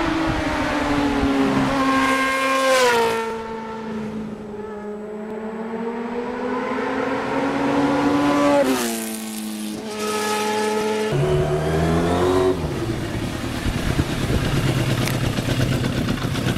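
Yamaha FZR1000 sport bike's inline-four engine at high revs, passing by three times, its pitch dropping sharply as it goes by each time. A rougher low engine hum follows the last pass.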